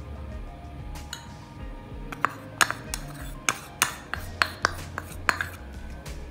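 Metal spoon clinking against a bowl while cornflour is stirred: about ten sharp, irregular clinks starting about two seconds in.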